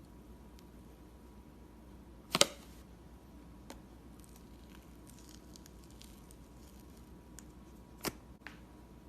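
Slime being handled: one loud sharp pop about two and a half seconds in, faint scattered crackles in the middle, and two smaller pops near the end.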